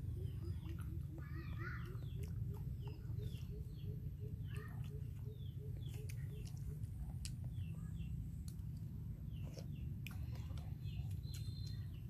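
Birds chirping around, many short falling chirps, with a low call repeating about four times a second through the first half or so, over a steady low rumble.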